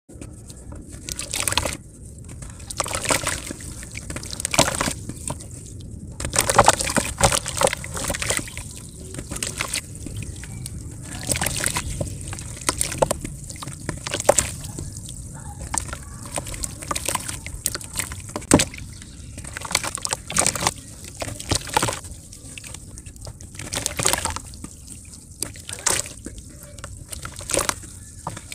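Hands crushing chunks of dried mud in a tub of water: water sloshing and splashing as the chunks break and drop in, in short irregular bursts about every second or two.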